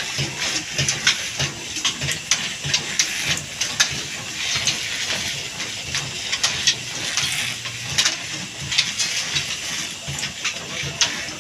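Old stationary diesel engine running with a steady beat of about two to three strokes a second, driving flat belts and pulleys, over a constant hiss.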